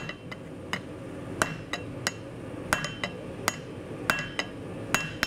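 Hand hammer striking a hot steel knife blade on an anvil: about a dozen blows at an uneven pace, several leaving a short metallic ring. These are light shaping blows, tuning up the forged blade.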